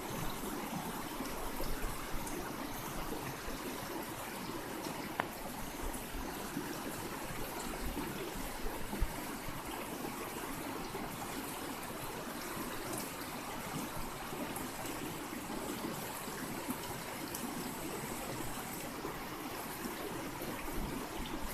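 River water flowing steadily, a continuous rushing and trickling current, with a couple of faint clicks.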